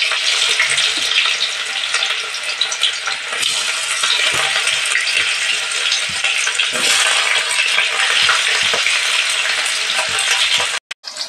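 Sliced onions sizzling loudly in hot oil in an aluminium kadai, with occasional scrapes and taps of a steel spatula against the pan. The sound cuts out for a moment near the end.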